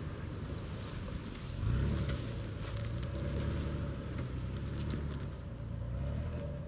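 2018 Toyota 4Runner TRD Off-Road's 4.0-litre V6 engine pulling under load as the SUV climbs a steep sand mound, louder from about two seconds in and easing off near the end. Scattered crackles of brush and sand under the tyres.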